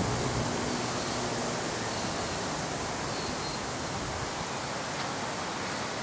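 Wind rushing steadily through the leaves and branches of trees.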